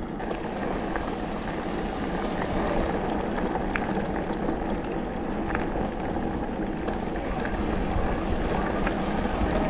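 Electric mountain bike riding along a dirt and gravel track: steady tyre rolling noise mixed with wind rushing over the GoPro's microphone, and scattered small clicks.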